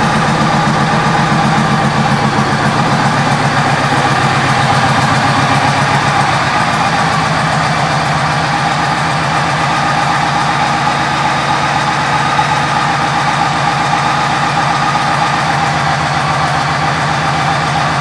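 2010 Yamaha Stratoliner Deluxe's 1854 cc air-cooled V-twin idling steadily through its aftermarket Freedom exhaust, with an even, rapid low-pitched pulse.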